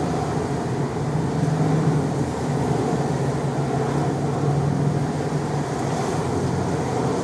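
Steady car engine and cabin noise heard from inside a car, a constant low hum without change.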